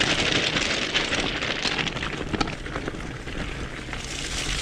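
Fat 4.6-inch bike tyres rolling over loose gravel and crusted snow, a continuous crunching crackle scattered with small clicks. The crunching eases about halfway through and comes back near the end. A constant low rumble of wind buffets the helmet or handlebar microphone.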